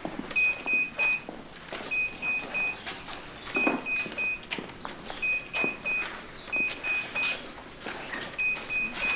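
Electronic card-reader time clock beeping three short high beeps each time an ID card is swiped, six times over, one swipe after another.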